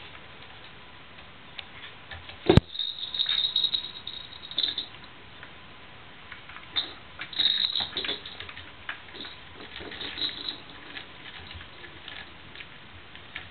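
Kittens playing on a plastic bathtub floor and a ball-track cat toy: light patter, scratching and clicks of paws and claws, coming in clusters, with one sharp knock about two and a half seconds in.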